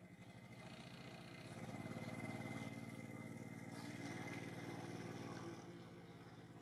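A motor vehicle engine running at an even pitch, faint, growing louder about a second and a half in and dropping back near the end.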